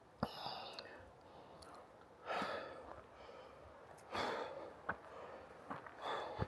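A person breathing out hard in heavy puffs about every two seconds, as on an uphill hike, with a few light clicks between the breaths.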